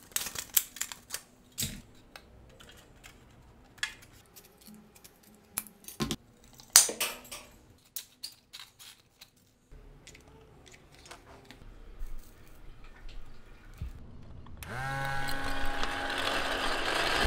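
Thin soda-can aluminium being creased, handled and snipped with scissors, a scatter of sharp clicks and crinkles. Near the end the toy's small electric motors and propellers whir up, rising in pitch and then running steadily.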